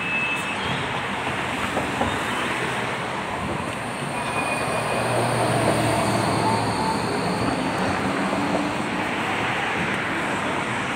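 Electric tram pulling away from a platform stop: a short door-closing beep at the start, then the steady rumble of the tram with a faint rising whine as it accelerates past.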